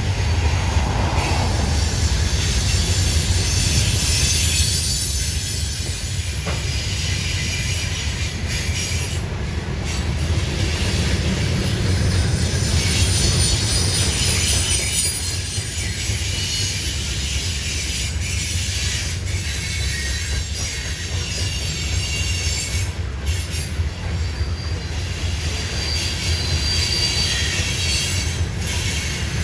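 Loaded Norfolk Southern coal hopper cars rolling past, a steady low rumble of wheels on rail, with high-pitched wheel squeal coming and going.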